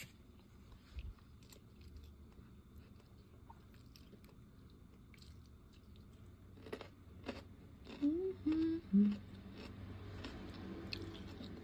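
Close-up eating sounds of a person eating smoked fish and rice by hand: chewing and small sharp mouth and finger clicks scattered throughout. A couple of short hums, the loudest sounds, come about eight to nine seconds in.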